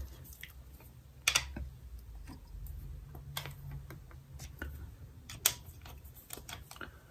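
Scattered light metallic clicks and taps of a screwdriver-handled driver working the stator cover bolts on a Yamaha R1 engine, as the bolts are loosened and spun out by hand. Two sharper clicks stand out, about a second in and about five and a half seconds in.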